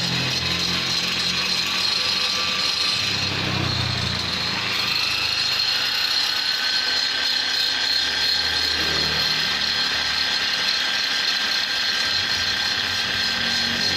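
Rotary grinder fitted with a carbide tuner burr cutting metal while porting a Vespa cylinder, running steadily with a high whine whose pitch shifts slightly as the burr bites.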